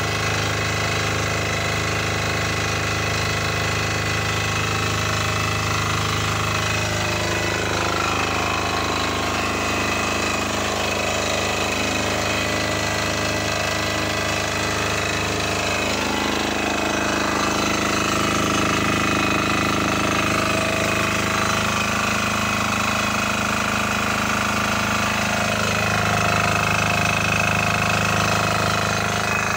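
Lutian LTD5900E diesel generator set running, its 7 HP LT178F single-cylinder air-cooled diesel engine holding a steady speed that shifts slightly a few times.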